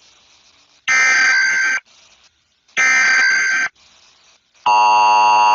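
Emergency Alert System header: two roughly one-second bursts of buzzy, warbling SAME data tones with short gaps between them, then the long steady EAS attention tone begins near the end.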